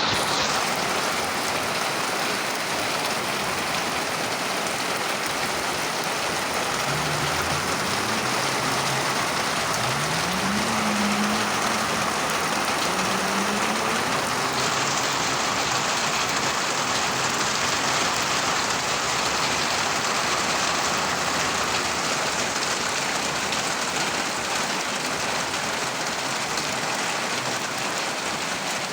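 Steady rain falling, an even hiss of drops on surfaces. In the middle a faint low hum glides up and down for several seconds.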